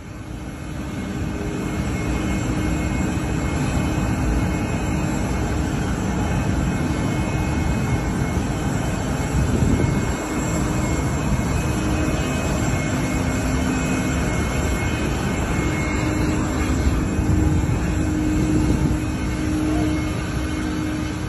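Boeing 747 freighter's jet engines running close by: loud, steady engine noise with a low hum through it.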